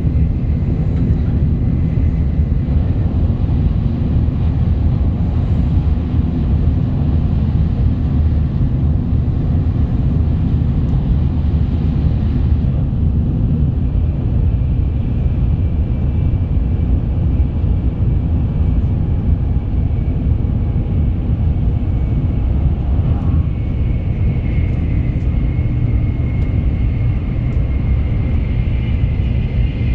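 Shinkansen bullet train running at speed: a steady, loud low rumble, with a thin high whine coming in over the last few seconds.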